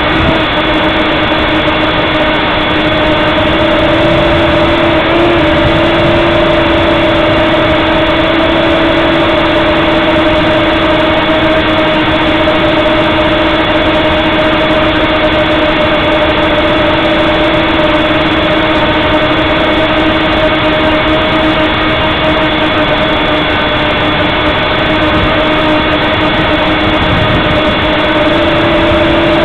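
Heli-Max 1Si quadcopter's motors and propellers buzzing steadily in flight, a loud hum with a clear pitch that wavers only slightly, heard close up through the quad's own onboard camera.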